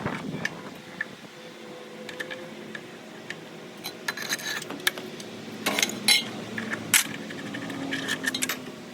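Metallic clinks and knocks of a wrench, breaker bar and blade hardware as a mower blade is worked off its spindle, in a few separate clusters of sharp clicks.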